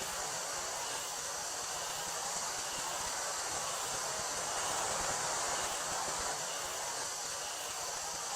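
Steady chorus of summer cicadas with wind rustling through wheat, the wind swelling a little about halfway through.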